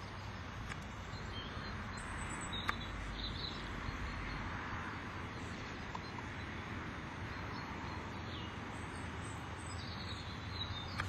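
Steady outdoor field noise with a few short bird chirps, in a cluster a couple of seconds in and again near the end, and a single sharp click.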